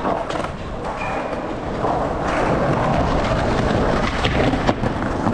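Skateboard wheels rolling over concrete: a steady rumble with a few sharp clacks.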